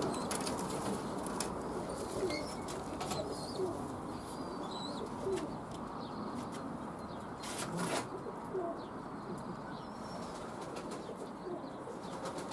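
Pigeons cooing and flapping their wings, with a few short sharp knocks and rustles.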